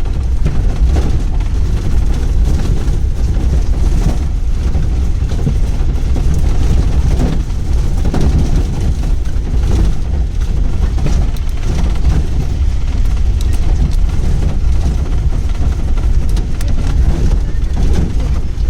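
Pickup jeep driving on a rough ghat road: a steady, loud rumble of engine, road and wind, heaviest at the low end.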